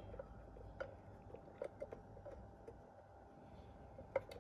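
Faint, scattered small clicks and taps of a nut and tool against metal parts inside a metal detector's housing, as a fiddly nut is worked onto its screw. A faint steady hum runs underneath.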